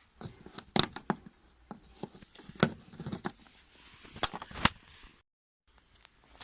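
Plastic push-clips being pried out of a car's rear bumper cover: a run of sharp clicks and snaps, four of them loud, before the sound cuts off suddenly near the end.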